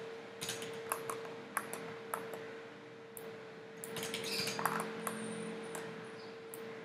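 Scattered clicks of a computer mouse and keyboard, irregularly spaced, over a steady faint hum.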